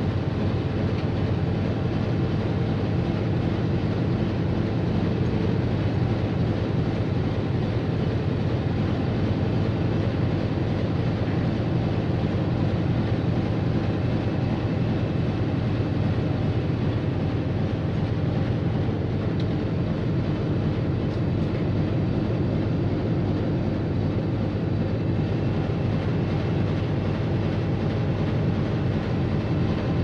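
German U-boat diesel engines running steadily: a low, unchanging drone with a fast, even pulsing beat.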